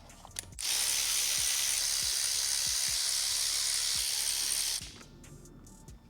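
Compressed air hissing steadily from a pneumatic tool for about four seconds, then cutting off sharply.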